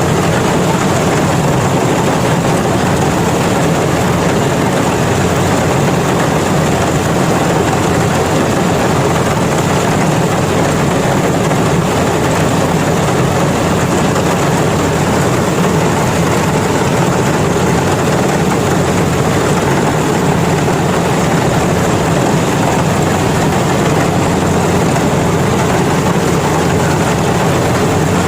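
Yanmar combine harvester running steadily at working speed while harvesting rice. Its engine and machinery make a loud, constant noise.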